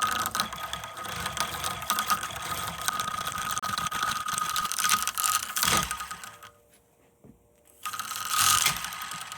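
Small power tool running with a steady whine and a dense rattle, cutting through a spool of copper winding. It stops about six seconds in and starts again about two seconds later.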